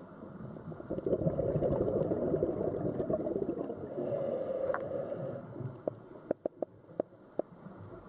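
A scuba diver's exhaled bubbles from the regulator, heard underwater through the camera, run for about four seconds. Several separate sharp clicks follow near the end.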